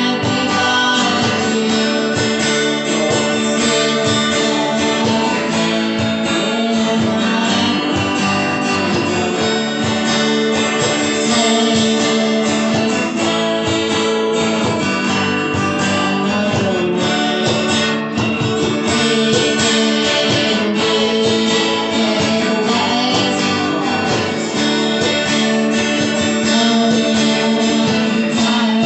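A small live acoustic band: two acoustic guitars strummed together, with hand percussion keeping a steady beat.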